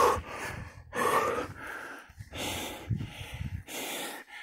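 A cyclist breathing hard while pedalling uphill: a run of heavy breaths close to the microphone, about one a second.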